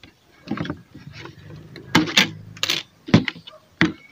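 Thin-walled clear plastic bottle being handled, its walls crackling with a string of sharp, irregular clicks.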